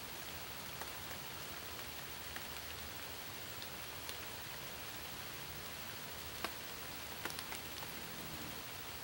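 Steady rain falling, an even hiss with scattered sharp ticks of single drops; the sharpest tick comes about six and a half seconds in.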